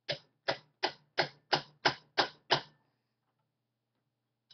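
Eight light, evenly spaced hammer taps, about three a second, driving a part through its hole in an old Singer sewing machine's frame, then stopping.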